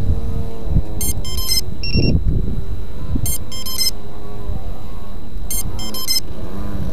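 Background music: a melody with a repeating cluster of bright electronic chimes about every two seconds.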